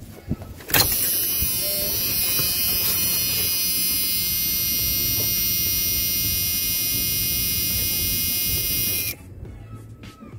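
Ignition key clicking as it is turned to the on position, then the dashboard warning buzzer of a 1988 Ford E-150 Econoline van sounding steadily for about eight seconds, with the engine not started, before cutting off suddenly.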